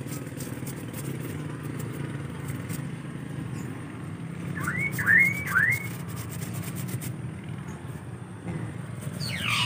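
A steady low engine hum, like a motorcycle or other small engine running nearby. About five seconds in come three quick rising chirps, and a falling whistle-like sweep follows near the end.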